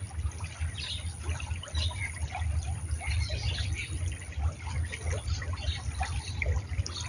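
Shallow stream water trickling steadily, with a steady low rumble underneath.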